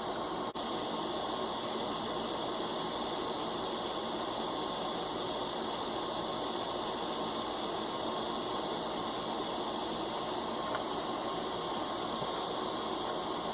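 Steady hiss of a lit butane soldering iron's gas flame.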